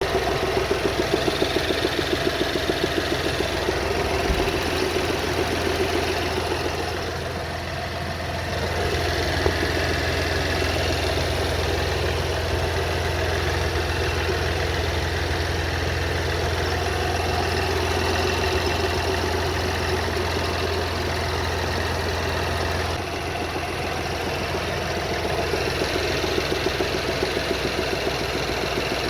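BMW B38 1.5-litre three-cylinder engine running at idle, with a regular knock from the back side of the engine that is not metallic in character; the owner does not know its cause. The knocks stand out clearly at the start and again near the end.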